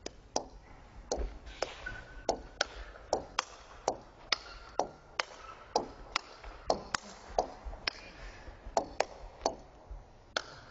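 A long table tennis rally: the ball clicks off the rackets and bounces on the table in a steady back-and-forth of sharp pings, about two to three a second. There are more than twenty strokes and bounces, with a faint held squeak in the middle.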